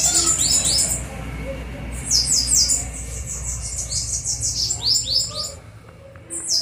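Bananaquits calling during a fight: rapid runs of high, thin, downward-slurred chirps in three quick bursts.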